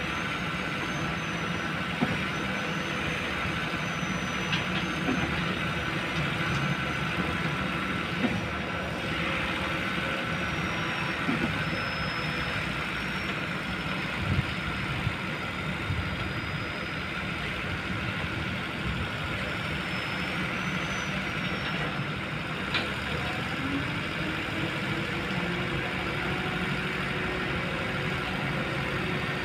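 Kobelco long-reach excavator's diesel engine running steadily as it works, with a thin high whine that wavers in pitch and a few light knocks. Its note rises a little near the end.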